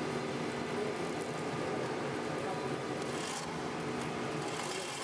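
Steady whirring hum of a synthetic (plastic) string production line running, with a few held tones over a broad machine hiss and a brief brighter hiss about three seconds in.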